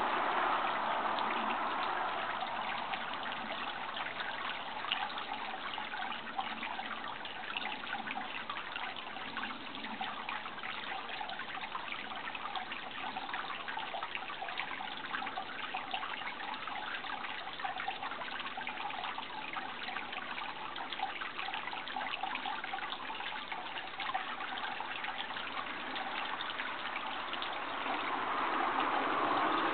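Running water trickling steadily, a fine even splashing. A louder rushing sound fades away over the first couple of seconds and swells again near the end.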